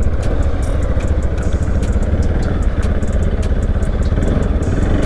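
Motorcycle engine running steadily, a dense low rumble with scattered light ticks over it.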